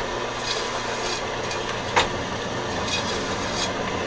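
Old 1940 electric meat slicer running with a steady hum while slices of pastrami are cut, with a sharp click at the start and another about two seconds in as the carriage is worked.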